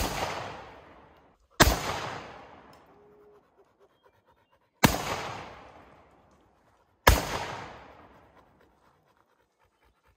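Four gunshots, irregularly spaced, each followed by a long echo that dies away over about a second and a half.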